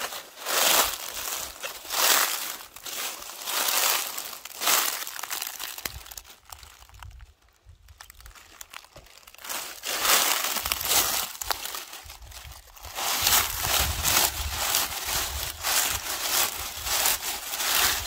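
Footsteps crunching and rustling through a thick layer of dry fallen leaves, a step every second or so, with a quieter pause about halfway. Near the end the rustling is denser and more continuous as hands rake through the leaves to pick up walnuts.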